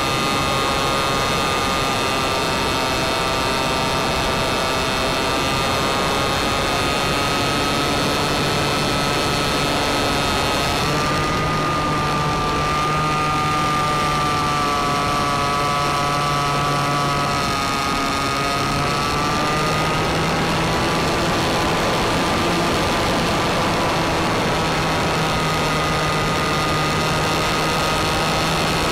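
An RC plane's motor and propeller heard from on board in flight: a steady whine over a constant hiss. Its pitch drifts up and down several times, dipping about two-thirds of the way through and then rising again.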